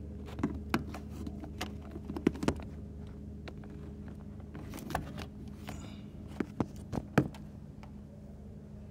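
Scattered light clicks and knocks, a few sharper ones close together near the end, over a steady low electrical hum.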